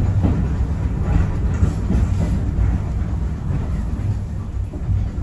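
Heritage railway carriage running along the track, a steady low rumble with some wheel-on-rail clatter, heard from on board.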